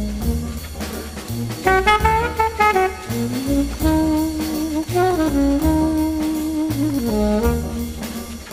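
Background jazz music: a horn melody over a bass line.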